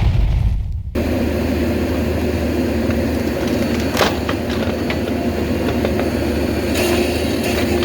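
A loud boom dies away in the first second. Then a steady engine starts running and keeps an even note, with one sharp click partway through.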